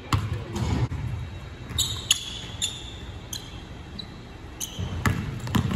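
Basketball being dribbled on a hardwood gym floor: a string of sharp bounces at an uneven pace, with a few short high squeaks among them.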